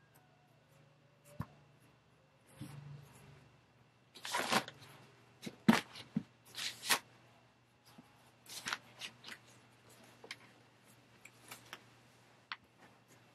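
Rustling and light knocks of things being handled and set into an open hard-shell suitcase, in scattered short bursts. The busiest stretch is about four to seven seconds in, with a faint steady low hum underneath.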